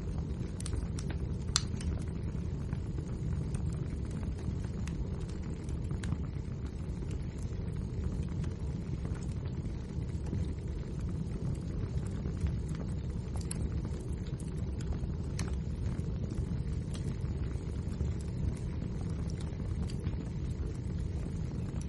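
Wood fire burning with a steady low roar of flames and scattered crackles and sharp pops from the burning logs.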